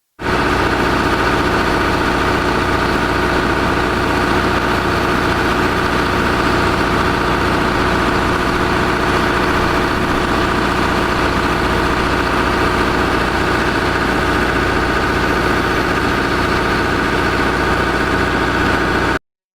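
Tractor engine running steadily at an even pace, cutting off suddenly near the end.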